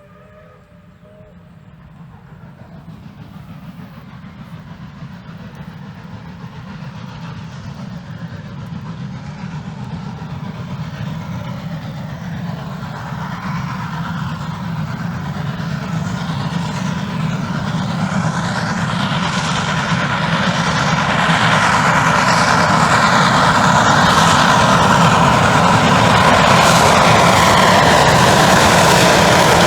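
Steam locomotive approaching and growing steadily louder, its running noise filling out and levelling off near the end; a whistle chord fades out about a second in.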